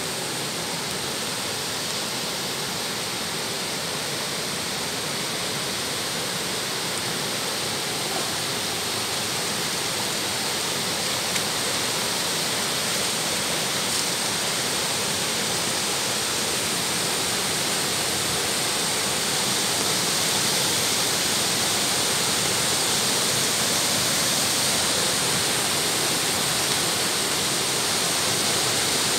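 Muddy floodwater rushing across a paved road in a steady, even rush, growing gradually a little louder.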